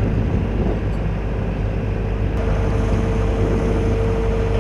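Diesel engines of heavy road-paving machinery running steadily during asphalt laying, a low rumble with a steady hum held throughout.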